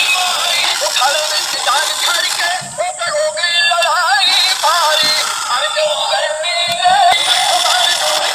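Background music: a song with a processed, synthetic-sounding singing voice that wavers in pitch, thin with almost no bass.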